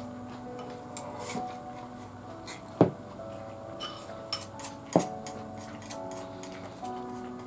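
Soft background music with a simple melody, under chopsticks clicking against a ceramic rice bowl. The two loudest clicks come about three seconds and five seconds in, with smaller taps between.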